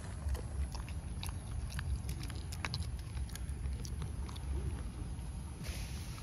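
A low steady rumble with many faint, scattered small clicks and ticks throughout.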